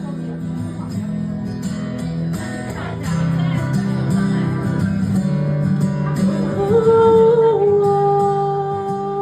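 Rock band playing an instrumental break with electric guitars over steady low chords. About six and a half seconds in, a lead guitar bends up to a high note and holds it to the end.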